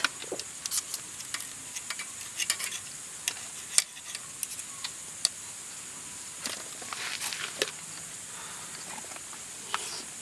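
Irregular light clicks and taps of utensils against camp cookware, over a steady high hiss.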